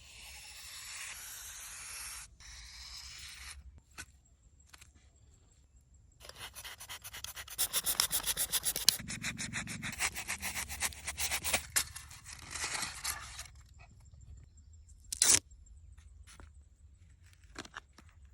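Hand-work scraping: a steady rasping hiss for about three seconds, then after a pause a run of fast, even scraping strokes lasting about seven seconds, and one short sharp scrape near the end.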